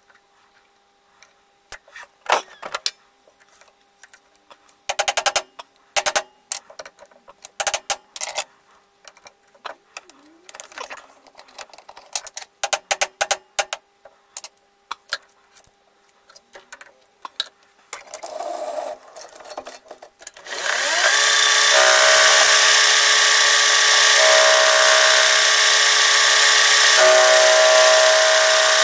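Sharp metal taps and knocks in short bursts as a disc is seated in a lathe's four-jaw chuck with a copper-faced mallet. About twenty seconds in, the lathe starts, its pitch rising briefly as it spins up, then runs loud and steady with the toolbit turning the spinning disc.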